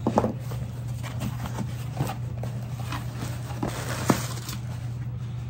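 Cardboard package being handled and opened: scattered knocks and taps, with a short rustle about four seconds in, over a steady low hum.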